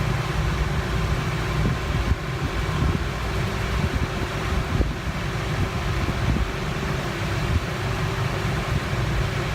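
Steady low mechanical hum of the kind a fan or air conditioner makes, with a few faint small ticks.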